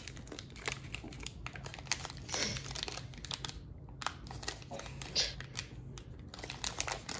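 Crinkling and crackling of a Score football card pack's plastic wrapper as fingers pull and pick at its sealed top, trying to tear it open by hand. The seal is stubborn. The crackles come irregularly, with a short lull about halfway.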